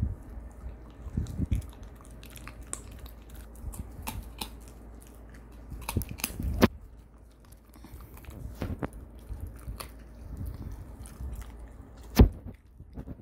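A Shiba Inu chewing and biting on a large bone-shaped chew treat, with irregular crunches and wet chomps; the loudest crunch comes about twelve seconds in.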